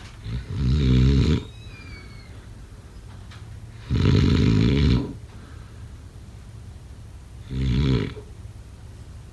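Snoring: three snores about three and a half seconds apart, each lasting about a second with a fluttering rattle, the last one shorter.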